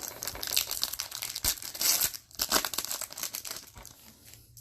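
Crinkling and tearing of a trading card pack's foil wrapper as it is ripped open and handled, with rapid crackles in close succession that ease off near the end.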